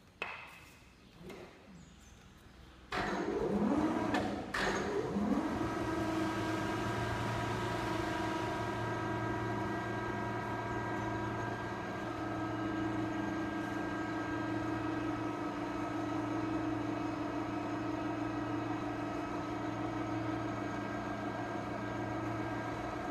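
Electric overhead crane hoist starting up about three seconds in, its pitch rising briefly, then running with a steady hum as it lifts a heavy aluminium coil. A few knocks come before it starts.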